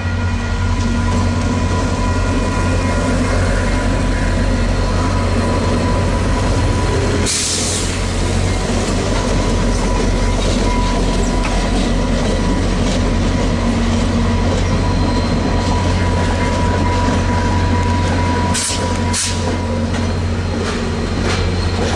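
VIA Rail passenger train passing close by behind an EMD F40PH-2 diesel locomotive: a loud, steady rumble of engine and rolling cars, with a thin steady high tone over it. Short hissing bursts come about a third of the way in and twice more near the end.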